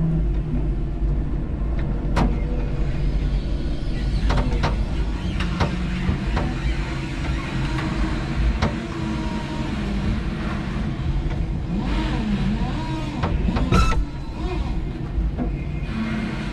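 5-ton electric forklift truck running: a steady low motor and hydraulic hum while it drives and positions its mast and forks, with several sharp clicks and knocks from the mast and forks, the loudest about 14 seconds in.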